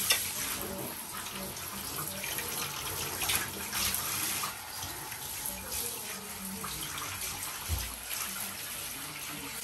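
Handheld shower spraying water over a Labrador sitting in a bathtub: a steady hiss of running water, briefly louder a couple of times around three to four seconds in.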